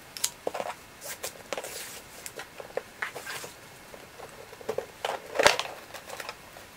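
Hands unwrapping and opening a cardboard shoe box: light rustles and taps as the ribbon comes off and the lid is lifted, with one louder knock about five and a half seconds in as the lid is set down.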